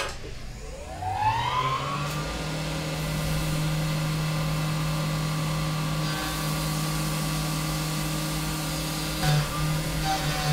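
CNC mill spindle spinning up with a rising whine over about two seconds, then running steadily at speed, with a hiss of coolant spray. About nine seconds in, a pulsing sound comes in over it.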